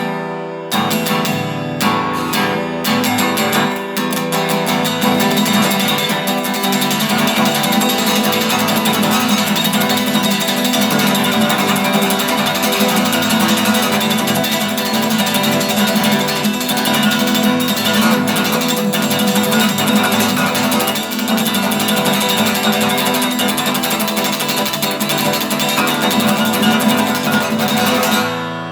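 Music played on a strummed string instrument, continuous and dense, with a few brief breaks in the first few seconds.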